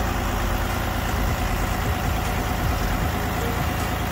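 Detroit Diesel Series 60 12.7-litre inline-six diesel idling steadily.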